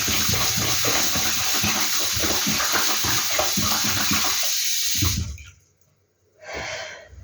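Kitchen tap running water into a sink as mussels are rinsed, shut off about five seconds in; a brief short sound follows near the end.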